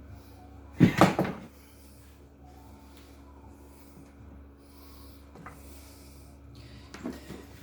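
Workshop clatter from hand tools on a seized engine's parts: a quick cluster of three loud knocks about a second in, then a few faint taps and clicks.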